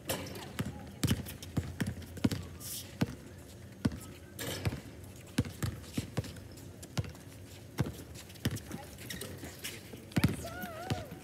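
Basketball bouncing on a hard outdoor court as it is dribbled, irregular sharp bounces about two or three a second, with a short shout from a player near the end.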